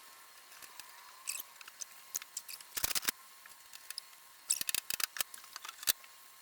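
Light clicks and rattles of metal shelving parts being handled, with two quick bunches of clicks about three and five seconds in and scattered single ticks between.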